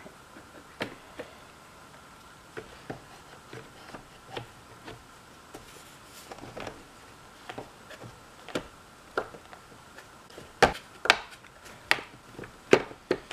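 Scattered plastic clicks, taps and knocks as the electric chainsaw's plastic cover is fitted and pressed onto its body. The knocks come louder and closer together in the last few seconds.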